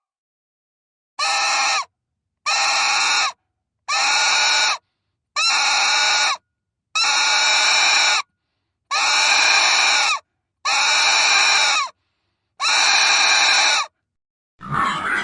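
Pig squealing: eight long, high-pitched squeals in a row, each about a second long with short silent gaps between them. A different, choppier sound begins just before the end.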